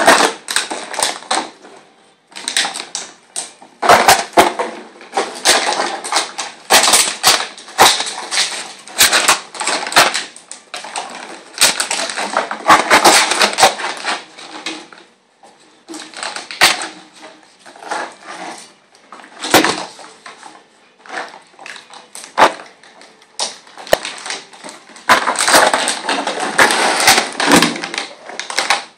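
A litter of Texas Heeler puppies scuffling and wrestling on a concrete floor: an irregular clatter of claws scrabbling, scraping and knocking, with a few brief lulls.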